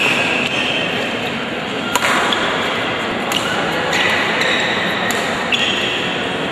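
Badminton rackets striking a shuttlecock in a singles rally: about four sharp hits, one to two seconds apart, over a steady murmur of crowd chatter echoing in a large hall.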